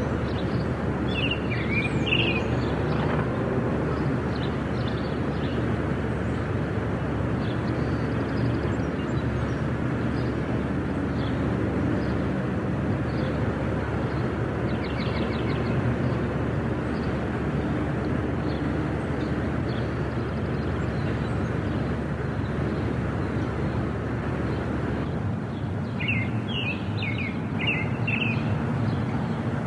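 Outdoor country residential ambience: a steady low rumble of background noise with scattered bird chirps, a cluster in the first couple of seconds and another near the end, and a brief rapid ticking call about halfway through.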